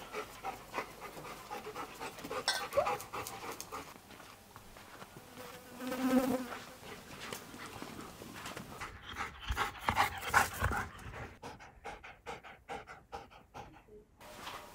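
A dog panting close by, in quick, regular breaths, with one brief higher-pitched sound about six seconds in.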